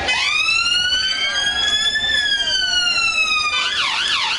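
Emergency vehicle siren sounding one long wail that rises for about two seconds and slowly falls, then switches to a fast warble near the end.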